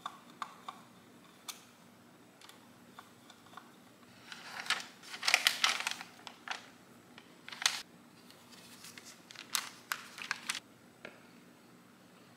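Parts of an IKEA BLÅSVERK table lamp, including its metal post, being handled and fitted together: scattered light clicks and taps, with a louder stretch of handling noise between about four and six and a half seconds in and another cluster near ten seconds.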